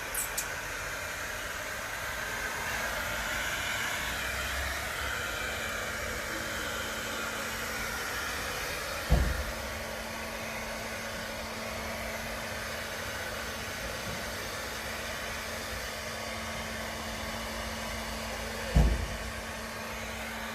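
Steady blowing noise of a small motor-driven blower with a faint hum, broken by two short dull thumps, about nine seconds in and near the end.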